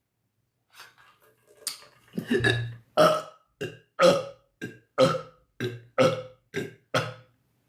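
A woman burping on command in a rapid string: one longer burp about two seconds in, then about ten short burps at roughly two a second, alternating louder and softer.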